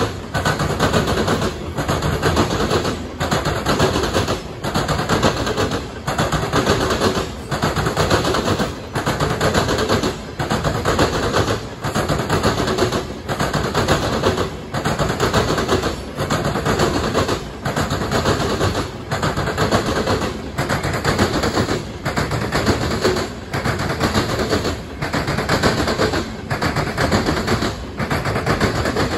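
Norfolk Southern covered hopper cars rolling past close by: a loud, steady clatter and rumble of steel wheels on the rails, with a short lull about once a second as the cars go by.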